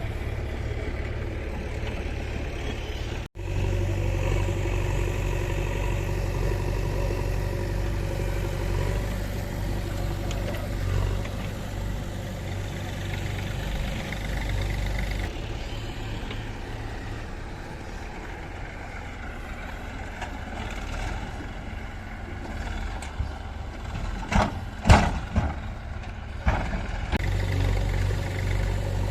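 Diesel engines of a backhoe loader and tractors running steadily, with a momentary break a few seconds in and a few sharp knocks near the end.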